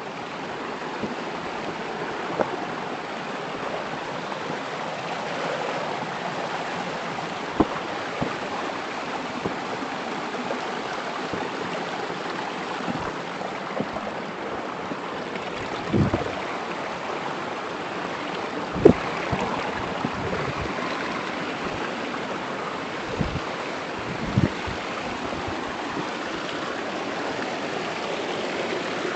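Steady rushing of a flowing stream, with a few short knocks scattered through.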